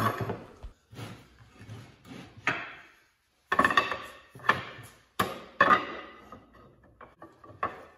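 Maple strips knocking and clattering against each other and against the plywood bench top as they are laid across pipe clamps, a series of irregular wooden knocks.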